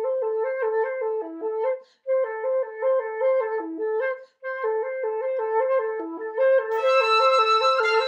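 Flutes and piccolo playing together: a flute repeats a quick, low figure of alternating notes, broken twice by short pauses. About two-thirds of the way through, a higher held line comes in over it.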